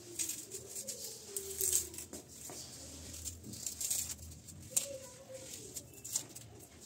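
Dry onion skin crackling and rustling as a red onion is peeled by hand, in a run of short papery crackles.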